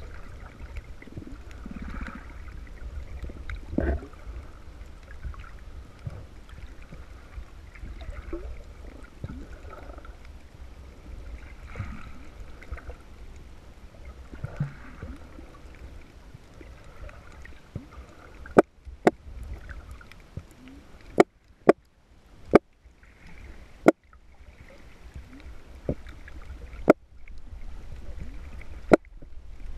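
Low underwater rumble of moving water. In the last third, about ten sharp, separate clicks come at uneven intervals, made by a territorial damselfish attacking the camera to defend its patch of reef.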